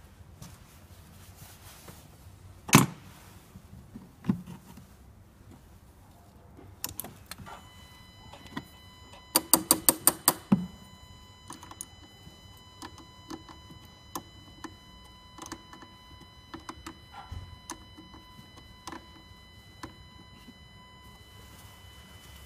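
Car battery terminal clamp being fitted and tightened: a ratchet wrench clicks rapidly in a short run of about eight clicks around the middle, with a sharp metallic knock early on and lighter tool clinks throughout. From about seven seconds in a faint steady high-pitched whine sets in.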